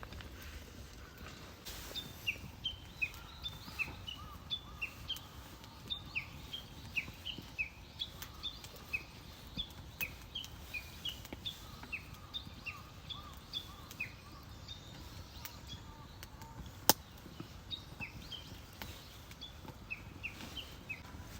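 A bird calling over and over, short downward-sliding chirps about two a second, with a faint lower warble beneath. A single sharp click sounds near the end.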